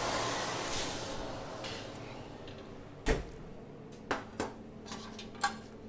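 Kitchen handling sounds as a metal pan of roasted carrots is fetched. A rushing noise fades over the first two seconds, a sharp knock comes about three seconds in, and then a few light clicks follow.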